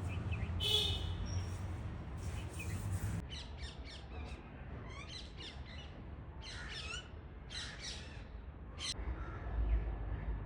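Birds calling: a run of short, sharp squawking chirps in quick clusters, with a louder call just under a second in. A low rumble comes in near the end.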